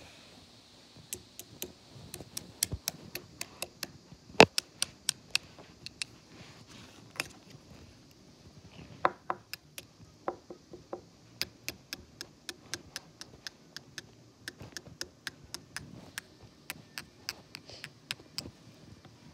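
A long run of sharp clicks or taps, about two to three a second, with a short pause partway through; a few of the clicks ring briefly.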